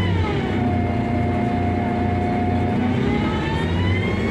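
City bus engine and drivetrain running, heard from inside the bus: a steady low hum under a whine that drops in pitch about half a second in, holds level, then rises again near the end as the bus picks up speed.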